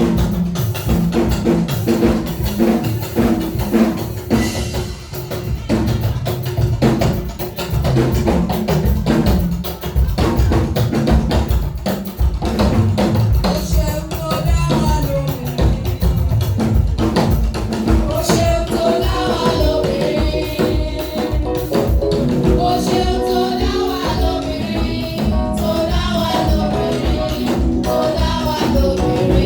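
Live church praise music with drum kit and tambourine keeping a steady beat, and voices singing that come in more strongly about two-thirds of the way through.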